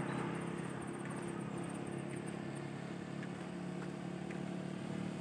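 A motor vehicle's engine running steadily on the road, a low hum that grows a little louder near the end as it draws closer.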